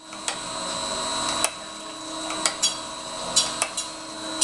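Surface grinder running: a steady machine hum with a thin high whine, broken by several sharp clicks and knocks.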